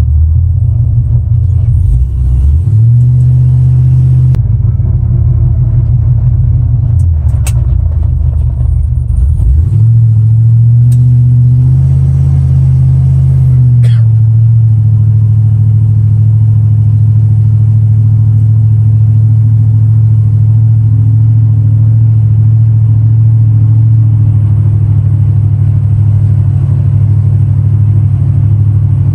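Vortech-supercharged 5.3-litre V8 with an LS9 cam, in a 1974 GMC truck, running with a loud low rumble as the truck drives. The engine note shifts several times in the first ten seconds, then holds steady.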